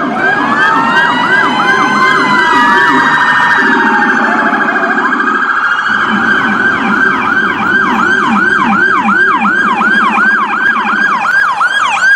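Electronic emergency-vehicle siren switching tones: a fast yelp of short rising-and-falling sweeps, a slower wail gliding up and down from about two seconds in, then the fast yelp again from about six seconds in, with a lower wobbling tone underneath.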